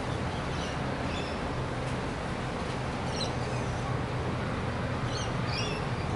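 Rainbow lorikeets chirping, short high calls coming several times and thickest near the end, over a steady rumble of distant harbour and city noise with a low hum.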